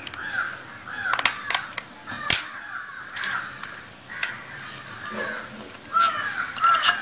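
Screwdriver prying apart the plastic case of a Mi 10400 mAh power bank: several sharp plastic clicks and snaps as the end cap is levered off and the cell pack is slid out. Crows caw repeatedly in the background.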